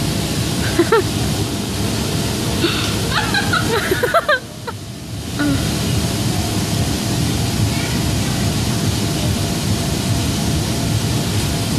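Steady loud rushing of the electric air blowers that keep the inflatable ring and bounce house inflated, dipping for about a second midway. A few short high voice-like calls come about a second in and again around three to four seconds in.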